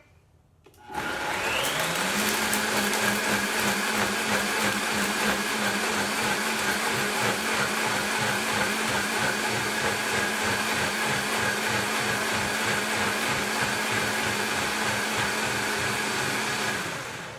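Vitamix blender spinning up about a second in, rising in pitch briefly, then running steadily at medium speed as it purees thawed berries. It shuts off near the end.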